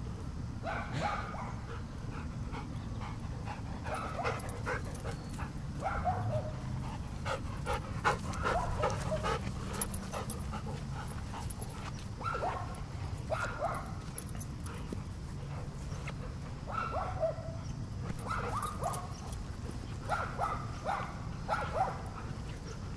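A dog whining and giving short yips, over and over at uneven intervals, excited during a game of fetch.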